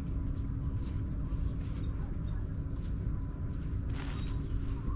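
Garden ambience: a steady high-pitched insect drone over a low rumble, with a few short high chirps about three to four seconds in.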